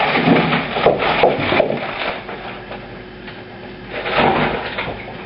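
Clattering and knocking of hard objects being handled and cleared away, in two bouts: one over the first second and a half, another about four seconds in.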